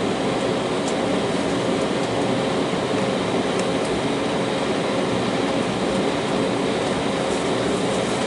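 Steady cabin noise inside an Embraer 190 airliner taxiing, its GE CF34 turbofan engines running at low taxi power, with a faint steady hum.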